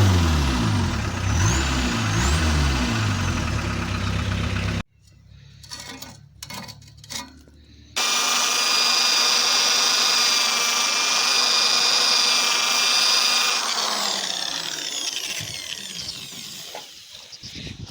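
Motorhome engine revving up and down through its newly fitted exhaust, stopping abruptly about five seconds in. After a quieter gap, a power tool runs at a steady high whine for about five seconds, then spins down.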